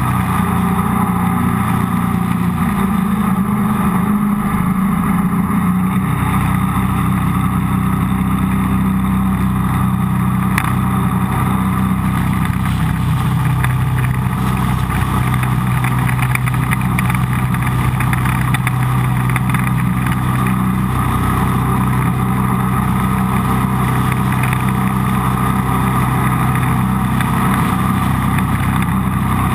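Jet boat's engine running steadily while the boat cruises up a calm river, heard from on board; the engine note shifts slightly about six seconds in.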